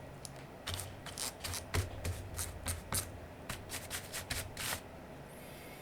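A brush scrubbing across a mechanical keyboard's exposed switches and plate in a quick series of short, scratchy strokes for about four seconds, then stopping.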